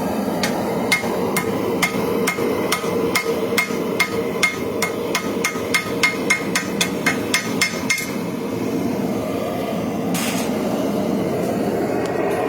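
Hammer blows on hot steel at the anvil, drawing out a knife's tang: a run of about twenty ringing strikes that quicken from about two to about three a second and stop about two-thirds of the way through. A steady background noise runs under them.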